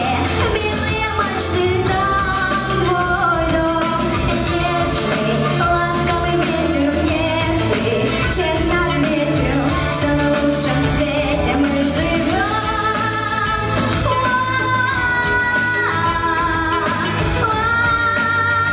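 A young girl singing solo over an instrumental accompaniment, holding long high notes in the last third.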